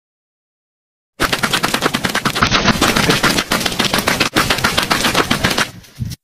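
A rapid string of sharp bangs like machine-gun fire, about ten a second. It starts suddenly about a second in, after silence, runs on for about four and a half seconds, then fades out.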